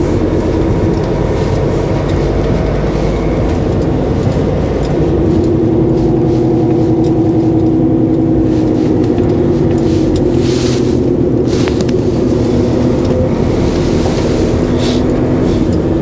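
HGV diesel engine running on the move, a steady drone heard from inside the cab, stepping up a little louder about five seconds in.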